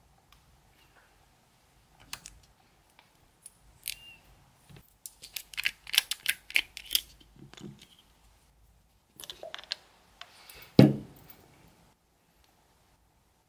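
Close-up handling sounds of a plastic gel-remover dropper bottle: scattered clicks, then a quick run of sharp plastic clicks and taps as the cap and dropper are worked. About eleven seconds in comes one louder, deeper knock.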